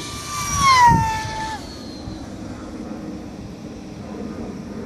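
Speed Shark RC model plane's electric motor and propeller whining in a fast low pass. The whine swells to its loudest about a second in, drops steeply in pitch as the plane goes by, and fades within two seconds.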